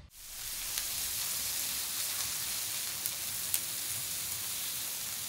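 Thin slices of raw red meat sizzling on a hot nonstick griddle pan: a steady frying hiss with a few small sharp pops.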